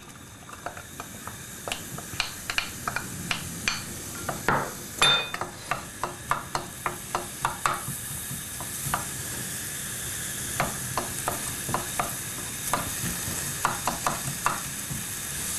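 Diced red onion and crushed garlic sizzling in oil in a stainless steel pot as they are sautéed, with a steady hiss. A wooden spoon stirring them knocks and scrapes against the pot in irregular clicks.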